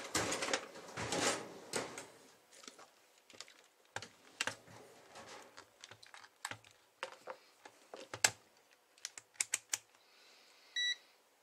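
A digital multimeter and its test leads being handled on a workbench: scattered clicks and knocks, the sharpest about eight seconds in, then a quick run of clicks as the rotary selector dial is turned. A short high beep near the end as the meter switches on.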